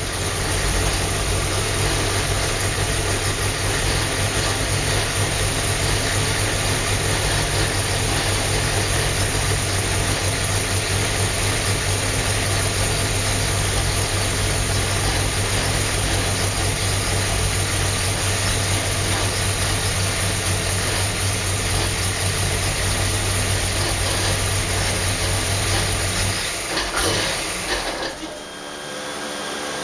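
632-cubic-inch big-block Chevrolet V8 with a solid roller cam running on an engine dyno, settling to a steady low speed and holding there. About 27 seconds in it shuts off, leaving a quieter, steady fan-like hum.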